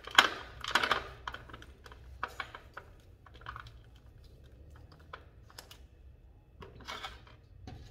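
Crushed stone and açaí seeds clicking and clattering onto a plastic tray as an orchid is pulled from its gravel-filled pot. A dense burst of clatter comes in the first second, then scattered single clicks, with a few more together near the end.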